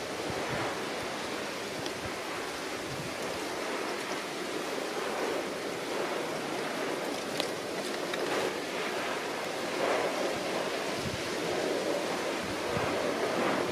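Steady rushing wind noise, with a few faint clicks scattered through it.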